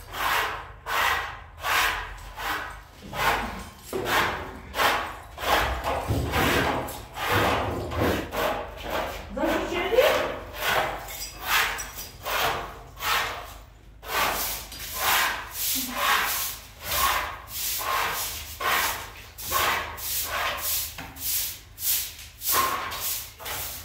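Rhythmic rubbing or scraping strokes, about two a second, one steady stroke after another with a brief pause about two thirds of the way through.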